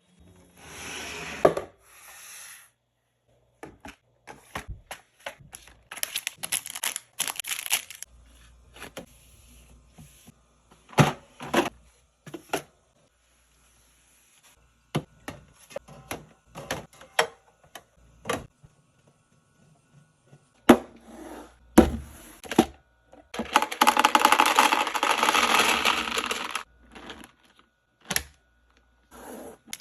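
Drink bottles, cans and food containers being set down and arranged on fridge shelves: a string of irregular sharp taps, clicks and knocks, with a few seconds of continuous rustling about three quarters of the way through.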